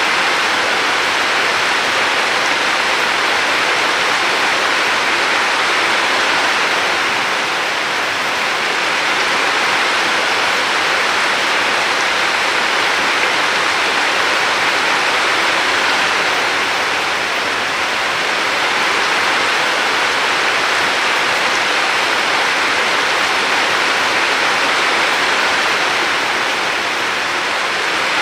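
Steady rushing water, a dense continuous hiss that swells and eases slightly every several seconds.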